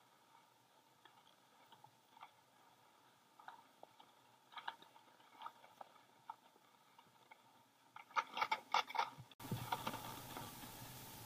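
Skis sliding up a packed-snow drag-lift track: faint crunching and scraping with scattered small clicks. About eight seconds in comes a quick run of louder clicks and knocks, then a steady hiss cuts in abruptly near the end.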